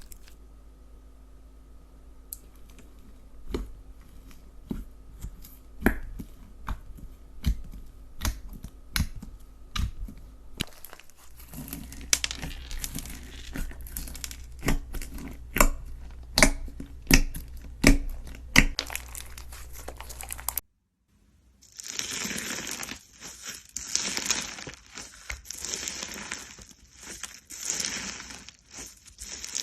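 Slime being pressed and squeezed by hand. For the first half it gives scattered sticky pops and clicks that grow denser. After a brief cut it turns into a dense, crinkly crackling that swells and fades with each squeeze.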